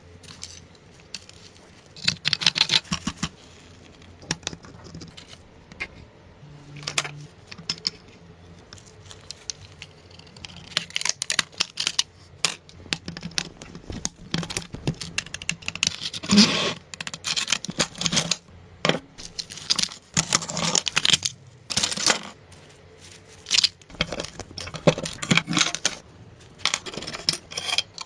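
Irregular clicking, scraping and clattering of hand work on metal parts, coming in bursts with short pauses between them.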